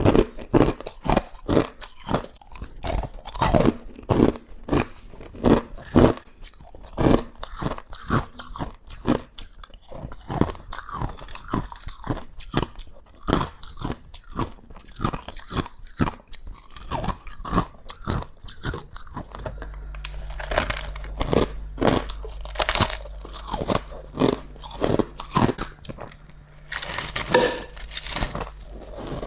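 Ice being bitten and chewed close to the microphone: a run of crisp crunches, a few a second. A low steady hum comes in about two-thirds of the way through.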